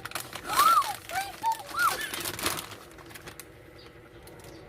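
Plastic packaging crinkling and rustling as items are pulled out of a slime kit box, with a few short squeaky rise-and-fall tones mixed in during the first two seconds, then quieter handling.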